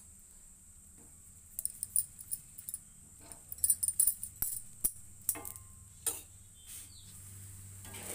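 Sharp metallic clinks and taps of a kitchen utensil against a tawa (flat griddle) as an aloo paratha cooks. They come as a scattered string of clicks over a few seconds, thickest around the middle.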